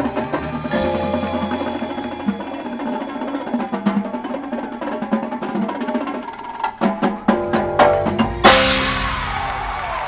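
Drum corps percussion section playing: snare drums with marimbas and other mallet instruments, building through a run of heavy accented strikes to one loud full hit with a cymbal crash about eight and a half seconds in, which then rings out.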